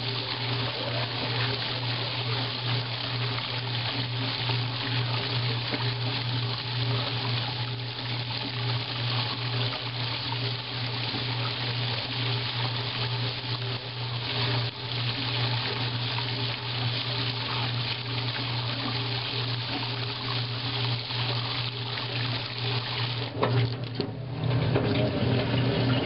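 Soapy water swirling and churning in the tub of a 1955 Blackstone washing machine as it runs, over the machine's steady low hum. About 23 seconds in there is a knock, and the sound then grows louder.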